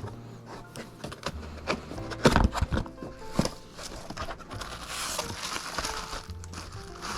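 Background music with held notes, over clicks, knocks and plastic crinkling from computer parts being handled during assembly. The loudest knocks come about two seconds in, and the crinkling rustle comes in the second half.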